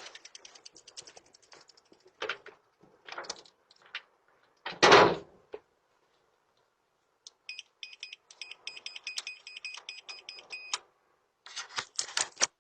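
A door being tried: several knocks and rattles, with the loudest bang about five seconds in. Then a quick run of short electronic beeps from a door keypad as codes are punched in, followed by a few more clicks near the end.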